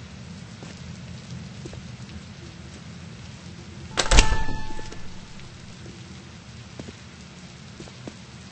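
A single cough about four seconds in, sharp at the start and dying away within a second, over a steady background hiss.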